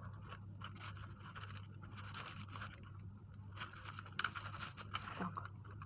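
Rustling and scraping of artificial leaves and stems as a bunch of soap flowers is handled and worked into a basket arrangement, with a few sharp clicks, the loudest about four seconds in. A steady low hum runs underneath.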